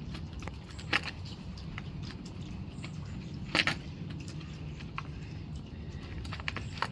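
A few sharp clicks and small knocks from handling the folded e-bike and its packaging while working at a cable tie, the loudest a short double snap in the middle, over a steady low hum.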